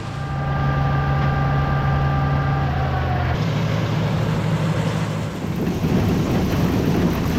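Tractor engine running steadily, with a high whine over it for the first three seconds. The sound changes abruptly about three seconds in, and a heavy engine keeps running.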